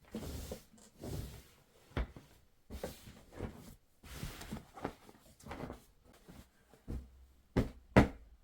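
Household objects being handled indoors: irregular rustling and shuffling broken by sharp knocks. The two loudest knocks come close together near the end.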